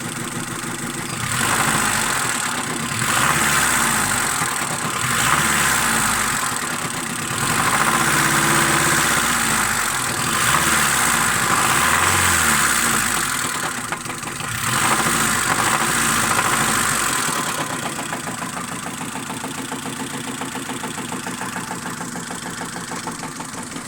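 Honda Civic Shuttle's ZC engine being revved about six times in a row by blipping the throttle, then settling to a steady idle about 17 seconds in. It has a knock that the owner places somewhere around the cylinder head and hears when revving.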